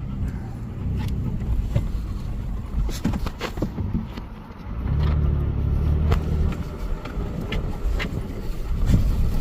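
A vehicle driving, heard from inside the cabin: engine running with a low rumble and scattered knocks and rattles, the engine louder for a second or so just past halfway.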